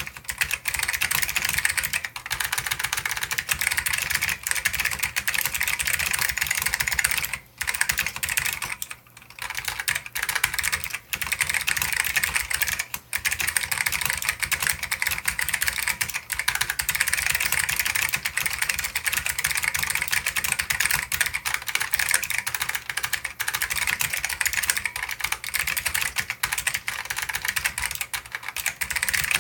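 Steady fast typing on an Ortek MCK-101 keyboard with clicky Alps SKCM White switches: a dense stream of sharp keystroke clicks. Two brief pauses come about a quarter to a third of the way in.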